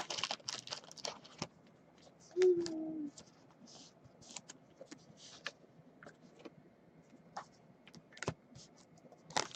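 Scattered soft clicks and light rustles, as of cards and packaging handled on a tabletop or keys being typed, with one short low hum-like tone about two and a half seconds in.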